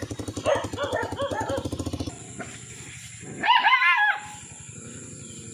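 A dog gives one loud, drawn-out cry, a little under a second long, about halfway through. Before it, a small engine runs with a fast, even beat.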